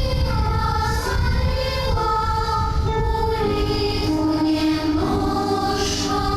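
Children's choir singing a slow melody in long held notes that step from one pitch to the next.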